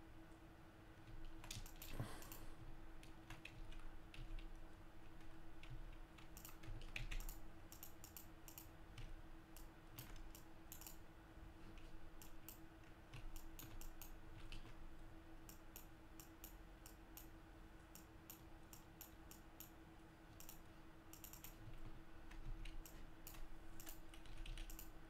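Faint, irregular clicking of a computer keyboard and mouse, sometimes in quick clusters, over a steady low hum.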